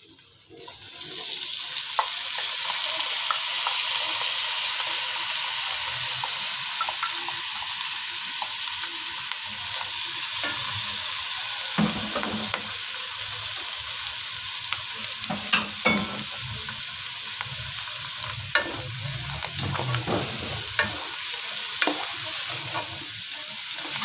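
Sliced button mushrooms sizzling as they land in hot butter, the sizzle starting about half a second in and running steadily. A wooden spatula stirs them, scraping and knocking against the pot, the knocks more frequent in the second half.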